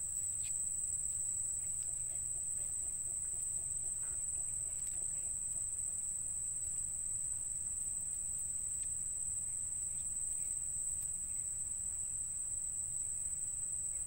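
Steady high-pitched drone of insects, unbroken and even in level, over a low background rumble, with a few faint short chirps.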